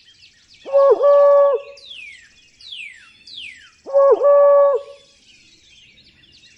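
Owl hooting twice, each hoot a short note run into a longer held one, with small birds chirping high in the background and a few loud falling whistles between the hoots.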